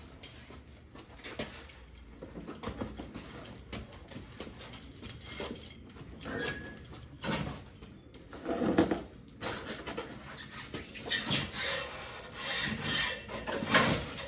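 Bicycles being wheeled and manoeuvred by hand: scattered rubbing, scraping and rattling, with louder knocks about nine seconds in and near the end.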